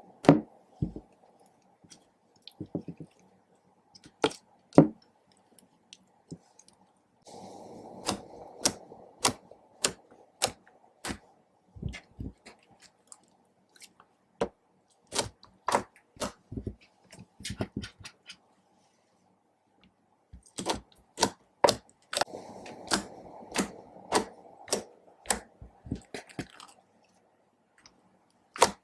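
Sticky slime or glue being mixed and pressed by hand, giving irregular wet clicks and squelches in clusters with short pauses.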